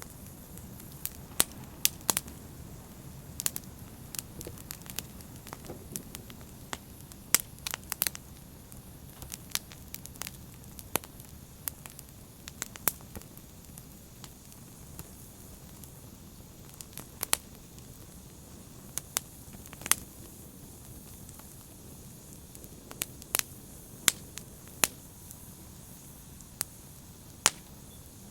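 Open fire burning with a steady low rumble and hiss, and sharp crackles and pops at irregular intervals, a few every second.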